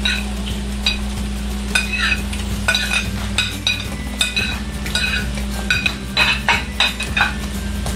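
A metal spoon scraping and clinking against a bowl as cooked rice is scooped out into a hot frying pan: a run of sharp, ringing clinks, closest together from about two seconds in to near the end, over a steady low hum.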